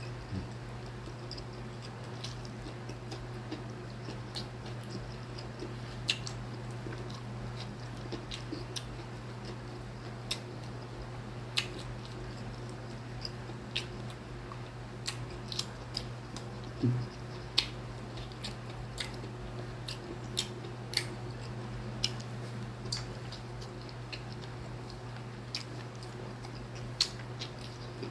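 Close-up eating sounds: chewing and mouth smacks with scattered sharp clicks at irregular moments, over a steady low hum.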